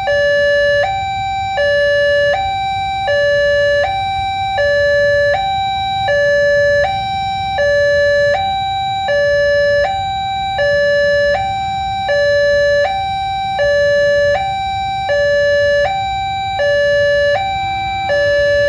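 Railway level-crossing alarm sounding its two-tone electronic warning, a high note and a louder low note alternating about every three-quarters of a second, the signal that a train is approaching. A low rumble of waiting traffic lies beneath.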